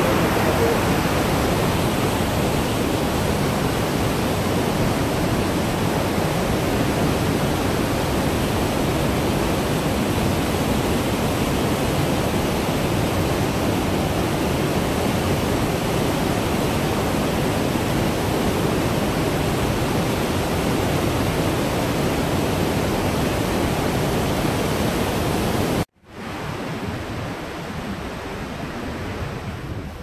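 Steady rush of river water pouring through a rock canyon. Near the end it cuts off abruptly and gives way to a quieter, more distant rush.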